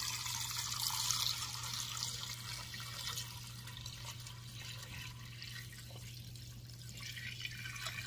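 Water pouring from a plastic batter bowl into a stainless steel stockpot over raw chicken breasts: a steady splashing pour, a little louder in the first second or so.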